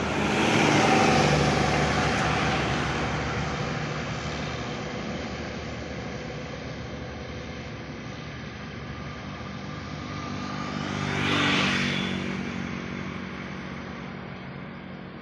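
A bus engine going past and fading away after its horn tune ends, followed about eleven seconds in by another vehicle passing.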